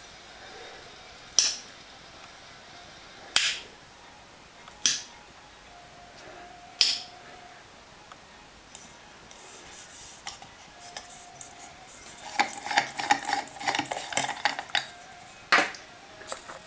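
Hands handling a table lamp and its LED bulb. There are four sharp clicks a second or two apart, then about three seconds of quick small clicks and rattles, and one more sharp click near the end.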